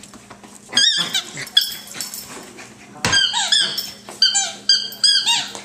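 Squeaky dog toy squeaked over and over as a fox terrier puppy chomps on it: a short run of quick squeaks about a second in, then a longer run from about three seconds on.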